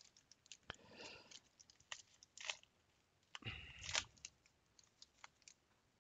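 Faint crinkling and tearing of a trading-card pack wrapper being opened, with light scattered clicks of card handling and a louder rustle and bump about three and a half seconds in.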